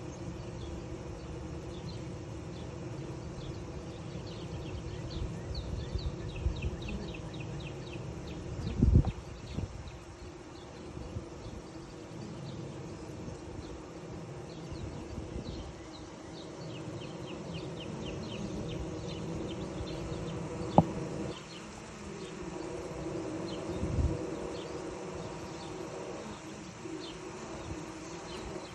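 Honeybees fanning at the hive entrance: a steady buzz of many wings beating to push air through the hive and cool it in the heat. Two low thumps, about a third of the way in and again later, and a sharp click between them stand out above the buzz.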